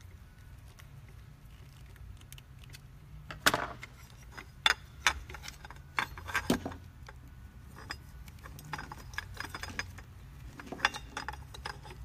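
Scattered sharp metallic clicks and clinks, starting a few seconds in, as wire leads and their metal terminals are handled and fitted onto the switch of a Clarke B2 edger floor sander.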